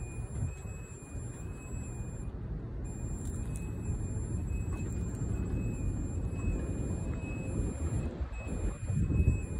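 Electric scissor lift (MEC Crossover 2659ERT) driving with its platform raised, its motion alarm sounding a high, repeating beep. Underneath is an uneven low rumble that swells near the end with a thump.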